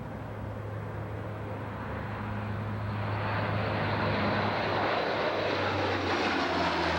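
Airplane engine noise growing steadily louder as the aircraft approaches, over a steady low hum.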